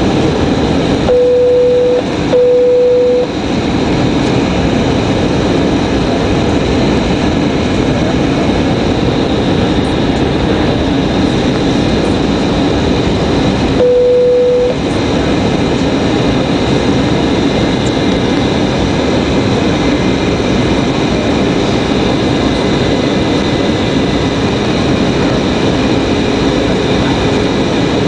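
Steady cabin noise of a jet airliner descending on approach: engine hum and rushing air with a faint high whine. Three short low beeps on one pitch, two close together about a second in and one near the middle.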